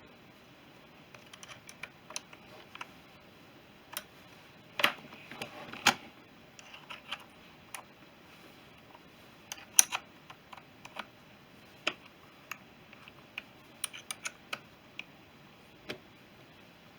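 Light, irregular clicks and taps of small metal carburettor parts being handled and fitted together by hand, with a few sharper knocks among them.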